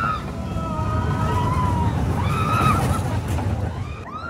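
Shouting voices rising and falling in pitch over a steady low rumble.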